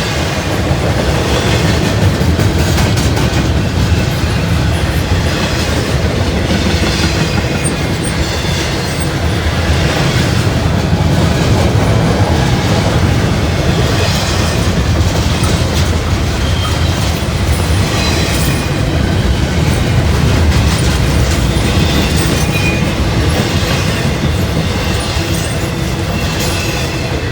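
Norfolk Southern freight train's cars rolling past close by: a steady heavy rumble with wheels clacking over rail joints and now and then a faint high wheel squeal.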